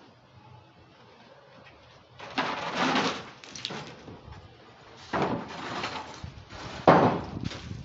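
Wooden scaffold planks being dragged and shifted on a metal scaffold: three bouts of scraping and knocking, about two, five and seven seconds in, the last opening with a sharp knock.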